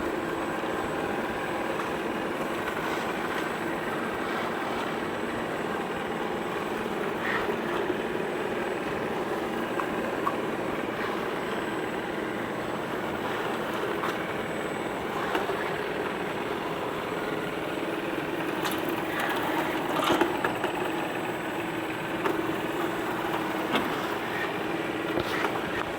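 CHUWI ILIFE V7S robot vacuum cleaner running: a steady motor and brush hum with scattered short clicks and knocks.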